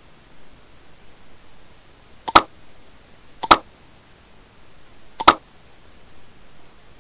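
Three sharp computer mouse clicks, each a quick double tick, spaced irregularly about a second or two apart, over a faint steady hiss.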